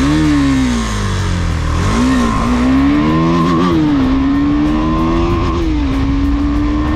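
KTM Duke single-cylinder motorcycle engine accelerating hard from a standstill, heard from the saddle. The revs climb and then drop back about three times as it shifts up through the gears, and it settles into a slowly rising pull near the end.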